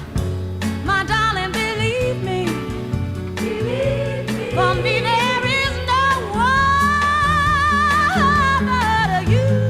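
Soul song with a lead vocal singing melismatic, wavering runs over a steady bass line, holding one long note near the end.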